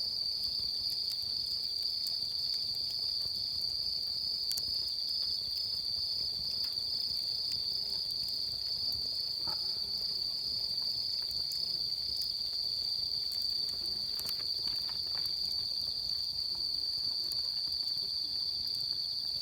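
Steady, high-pitched chorus of trilling insects, typical of crickets, never letting up, with faint scattered clicks underneath.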